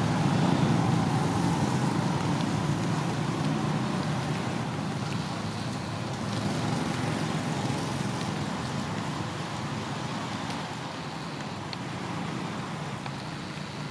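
A steady low rumble that slowly fades, with a couple of faint clicks near the end.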